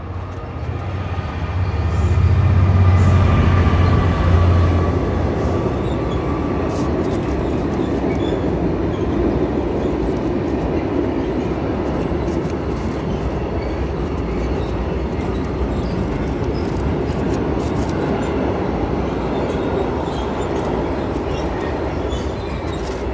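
A passing train: a deep rumble builds over the first few seconds, then a steady rushing noise carries on.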